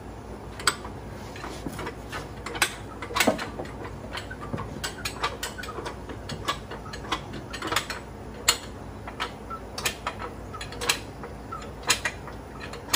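Irregular light metal clicks and knocks from hand work with tools and parts at a heavy flywheel, a few sharper knocks standing out among them.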